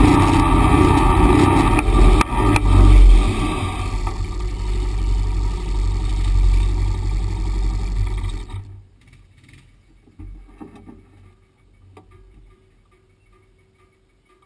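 Honda Pioneer 500 side-by-side's engine running as it drives a dirt trail, easing off about four seconds in. The engine noise cuts off abruptly about eight and a half seconds in.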